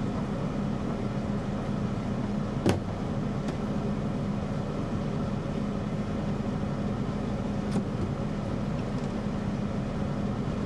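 Hair dryer running steadily: a constant blowing hum, with a sharp click about two and a half seconds in and a fainter one near eight seconds.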